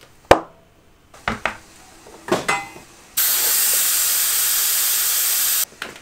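Compressed air working on a fat bike tyre with a tube inside. There is a loud sharp snap shortly after the start and a couple of softer knocks. Then comes a loud steady hiss of air lasting about two and a half seconds, which cuts off suddenly.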